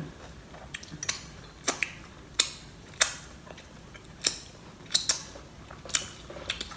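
Close-up eating sounds: chewing with sharp, wet mouth-smacking clicks, irregular, about a dozen over a few seconds.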